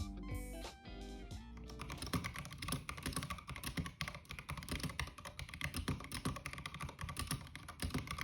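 Rapid typing on a Womier K87 mechanical keyboard fitted with new keycaps, a dense run of key clacks. Background music fades out in the first second or two as the typing takes over.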